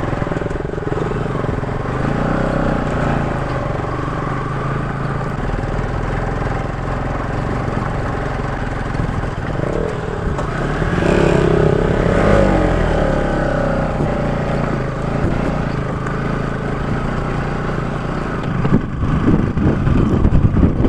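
Motorcycle engine running at low speed over a rough, rocky dirt track, the revs rising and falling around the middle.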